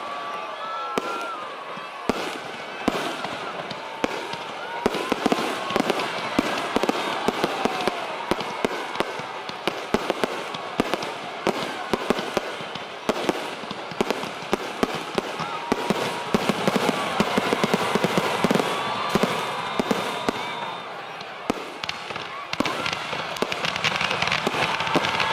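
Fireworks going off in rapid succession: many sharp cracks and pops over a steady crackle, with crowd voices underneath. It grows a little louder near the end.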